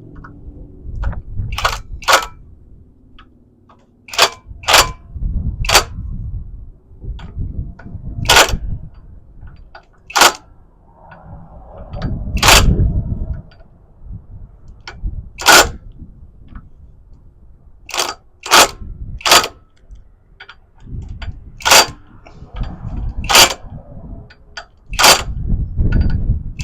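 Tools and metal parts handled during clutch and flywheel work: about twenty sharp clicks and knocks at irregular intervals, with dull low rumbles of handling between them.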